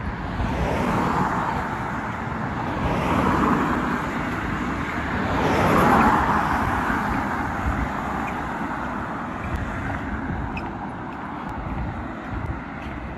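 Cars passing close by on the road, one after another, each a rising and falling rush of tyre and engine noise; the loudest passes about six seconds in.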